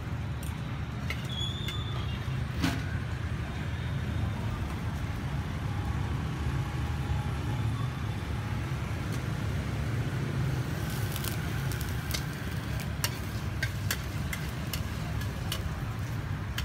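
Steady low rumble of street traffic, motorbikes passing close by. In the second half come a series of sharp clinks, a metal spatula knocking against a steel wok.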